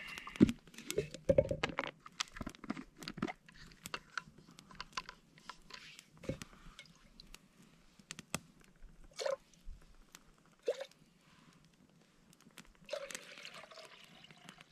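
Wood campfire crackling and popping: irregular sharp snaps from the burning wood, thickest and loudest in the first two seconds, then scattered.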